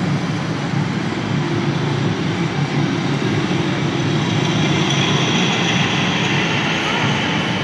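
Robosaurus, the robot dinosaur machine, running with a steady mechanical rumble and a hiss that grows stronger about halfway through, echoing in a large arena.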